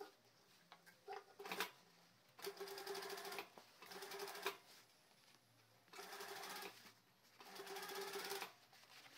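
Industrial lockstitch sewing machine stitching denim in four short runs of about a second each, its needle clattering rapidly over a steady motor hum. A few sharp clicks and a knock come before the first run.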